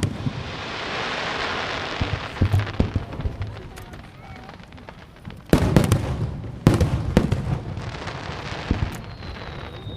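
Aerial fireworks: a long crackling hiss of sparkling shells, then sharp shell bursts about five and a half and seven seconds in, each followed by crackle. A thin, slowly falling whistle sounds near the end.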